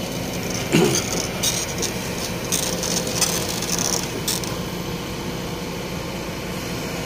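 Kobelco SK220 crawler excavator's diesel engine running steadily as the machine tracks forward on its steel crawler tracks. Irregular bursts of scraping and clanking come from the tracks between about one and four and a half seconds in.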